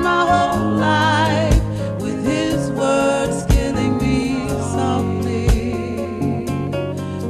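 Background music: a slow song with a singing voice that wavers in vibrato over sustained bass notes, and a deep drum hit about every two seconds.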